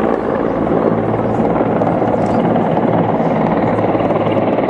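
Sikorsky CH-53 heavy transport helicopter flying past, its rotor and turbine noise loud and steady throughout.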